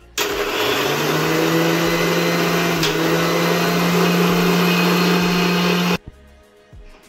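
Electric mixer grinder blending milk powder with warm milk in its steel jar. The motor starts, comes up to speed within about a second, runs steadily for about six seconds, then stops abruptly.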